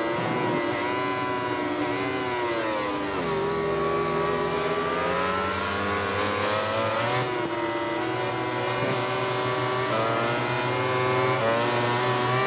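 Yamaha YZR-M1 MotoGP racing motorcycle's inline-four engine heard onboard at racing speed. The engine note falls hard about two to three seconds in, climbs, drops again about seven seconds in and climbs once more.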